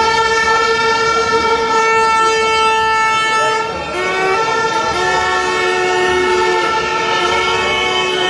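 Horns blowing long, steady held notes, several pitches sounding together; the notes change about four seconds in, with a lower note taking over.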